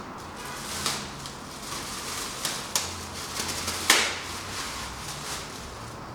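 A few sharp knocks and clatters of hard objects being handled, the loudest about four seconds in, over a faint steady low hum.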